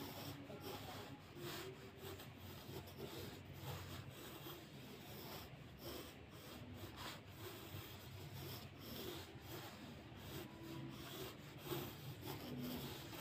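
Graphite pencil scratching on drawing paper in many short, light sketching strokes.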